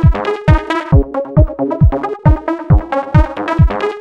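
Electronic dance music: a steady kick drum about twice a second under synthesizer chords.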